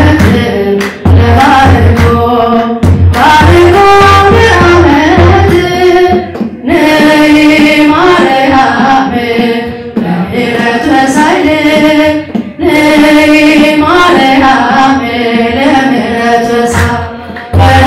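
A woman singing an Ethiopian Orthodox spiritual hymn (mezmur) solo into a microphone, in a gliding, ornamented melody with short breaks between phrases.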